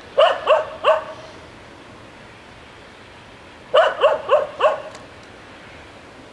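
A dog barking: three quick barks, then a run of four more about three seconds later.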